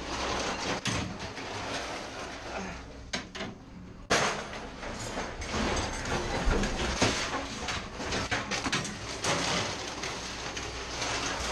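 Scrap metal pieces such as pipes and tubing clanking and rattling as they are pulled from a truck bed and thrown out onto a scrap pile, with a sharp crash about four seconds in. A low steady hum runs underneath.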